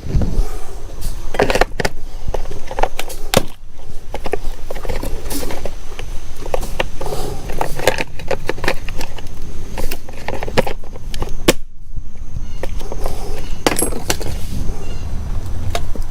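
Hand tools and small parts clicking, clinking and knocking irregularly as lawn equipment is reassembled.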